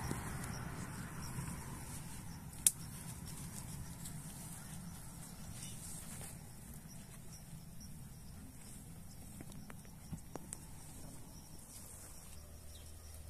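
Quiet rural outdoor ambience with faint insects chirping and a distant vehicle's rumble fading out over the first few seconds. One sharp snap comes about two and a half seconds in, and a few lighter clicks come near ten seconds, from the work in the brush.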